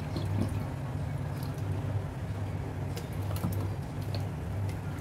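Raw lungs being handled by gloved hands in a stainless steel sink: soft wet handling noises and a few scattered light clicks, over a steady low hum.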